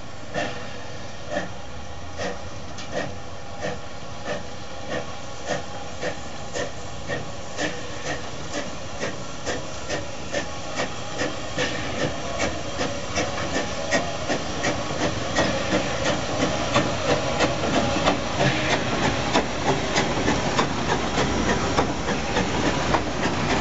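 Small steam tank locomotive pulling away with a train, its exhaust chuffing over a steady hiss of steam. The chuffs come quicker and louder as it gathers speed and draws near, and near the end the coaches roll past.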